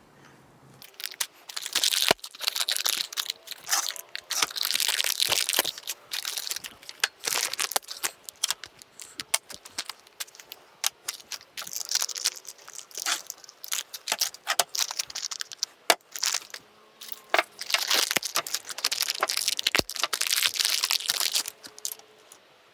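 Packaging of new motorcycle fork parts crinkling and rustling in irregular bursts as the parts are unwrapped and handled, with scattered small clicks and knocks.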